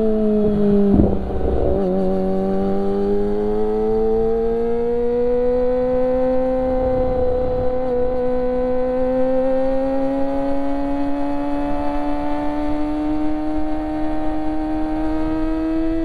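Kawasaki Ninja ZX-25R's inline-four engine through an Akrapovic exhaust, running at high revs while riding. The note breaks briefly about a second in, then climbs slowly and steadily under gentle acceleration.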